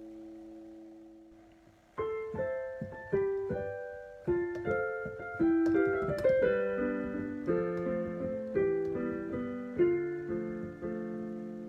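Piano intro to a children's theme song: after a fading held note from the previous song, a piano melody with chords starts about two seconds in.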